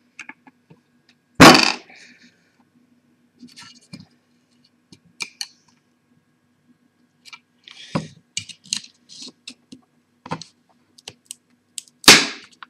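Small metal tools clicking, tapping and scraping against the parts of a disassembled laptop hard drive as its platters are pried out, with a loud sharp knock about a second and a half in. Near the end comes a sharp crack as one of the platters breaks.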